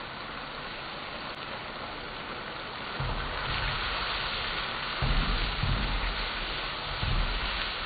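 Mapo eggplant sizzling in a wok over a gas burner, a steady hiss. From about three seconds in, the wok is tossed over the flame: the sizzle grows louder, with repeated low rumbling surges.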